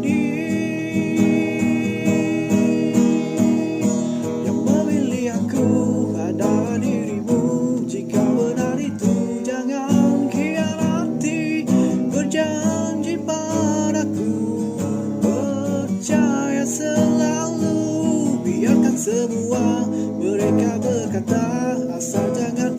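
Acoustic guitar strummed steadily under a singing voice in an unplugged pop ballad.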